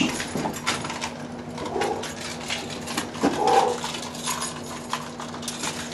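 Scattered light knocks and clicks of things being handled, with two short vocal sounds about two and three and a half seconds in, over a steady low hum.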